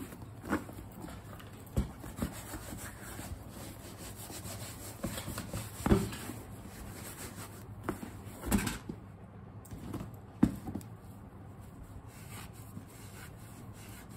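Kate Spade pebble-leather bucket bag being handled and wiped on a table: leather rubbing and scuffing, with a few knocks as the bag and its hardware are moved, the loudest about six and eight and a half seconds in.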